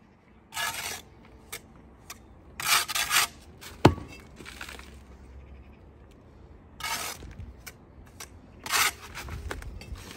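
Bricklaying by hand: a steel trowel scraping and slicing mortar against bricks in about four short strokes, with one sharp clink of metal on brick about four seconds in.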